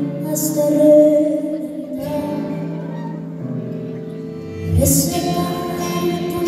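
Live band music heard from the audience seats: a slow song on acoustic guitar, keyboard and drums, with cymbal swells about half a second in and again near five seconds in.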